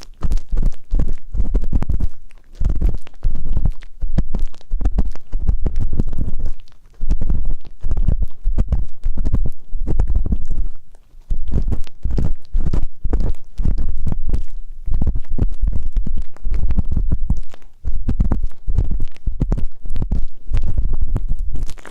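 Ear pick rubbing and scratching at a binaural microphone's ear in rapid, uneven strokes, heavy and rumbling in the low end, with brief pauses a few times.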